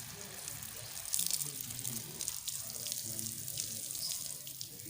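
Water running and splashing as a pigeon bathes in it, a steady hiss broken by many small splashes.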